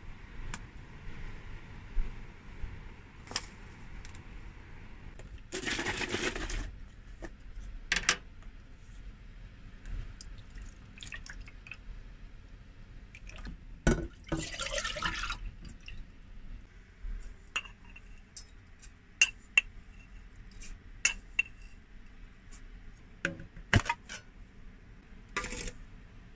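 Kitchen work at a stainless steel saucepan: two short rushes of something being poured into the pot, and scattered sharp clinks and taps of a spoon, tin and containers against metal.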